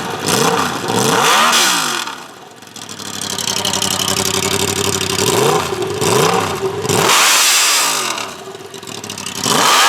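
Crossplane Yamaha YZF-R1 inline-four engine, run with its slip-on mufflers and Y-pipe removed, being revved hard several times, the pitch rising and falling with each rev and dropping back to idle between them. It is crazy loud.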